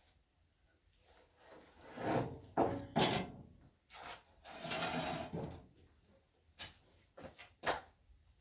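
Wood being handled on a workshop surface: a few scraping slides and knocks, the longest scrape about five seconds in, then a few light clicks near the end.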